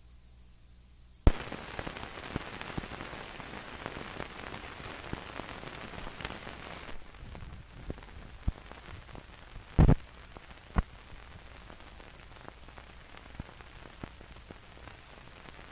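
Surface noise of an old film print's soundtrack as blank leader runs: a sharp click about a second in starts a dense crackle and hiss full of pops, which thins out about halfway through to fainter crackle with scattered sharp pops, the loudest around ten seconds in.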